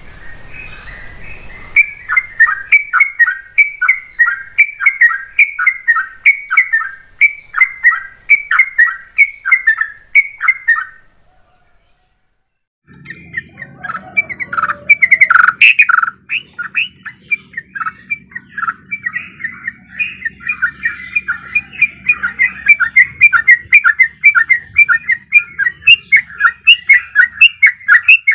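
Yellow-vented bulbul (trucuk) singing its rapid rolling song: quick runs of bubbly repeated chirps. The song stops for about a second near the middle, then resumes denser and faster.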